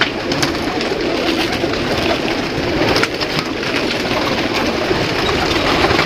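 A crowded loft of domestic pigeons (rock doves) cooing all at once in a dense, steady chorus, with a few short sharp wing flaps near the start and about three seconds in.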